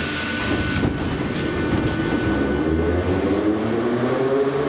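An 81-717/714.5 'Nomernoy' metro train pulling away from a station, heard from inside the car: the traction motors' whine rises steadily in pitch as the train gathers speed, over the rumble of the wheels.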